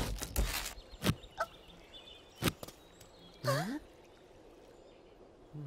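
Cartoon soundtrack sound effects: a burst of noise at the start and a few sharp clicks, then about three and a half seconds in a short wordless vocal sound from a character, sliding up and down in pitch.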